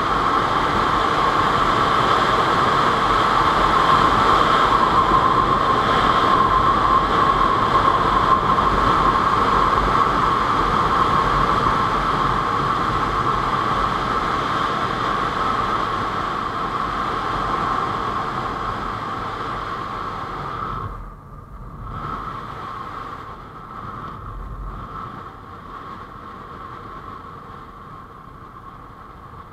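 Wind rush and the inline-four engine of a Honda CBR600F4i sportbike running at road speed, heard from a helmet-mounted camera as one steady loud roar of air and engine. About two-thirds of the way through the sound drops sharply for a moment, then carries on noticeably quieter.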